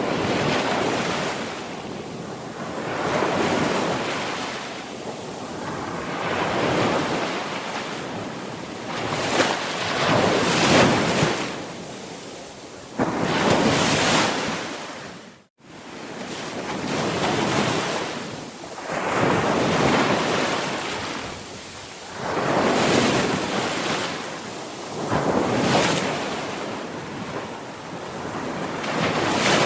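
Sea waves breaking and washing on a shore, swelling and ebbing every two to three seconds. A sudden brief gap cuts the sound about halfway through.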